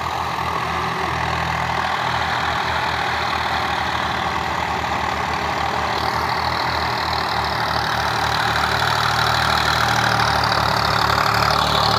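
Diesel tractor engines of about 50 hp running steadily under load as they pull cultivators through tilled soil.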